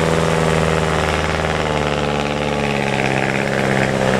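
A bus's diesel engine runs steadily under load as the bus climbs an incline, with a deep, even engine note that rises slightly about halfway through.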